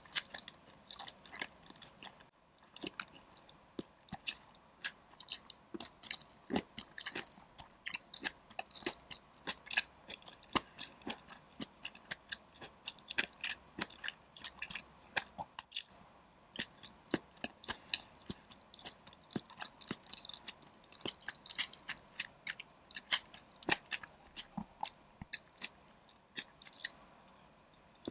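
A person chewing and crunching mouthfuls of spicy dry pot (mala xiang guo), a dense, irregular run of sharp crunchy clicks.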